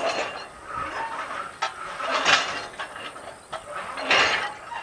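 Black soil pouring from the open dipper of an EKG-4.6B electric rope shovel into the steel body of a KAMAZ-6520 dump truck. It comes in three loud, noisy surges about two seconds apart, with a couple of sharp metallic clanks in between.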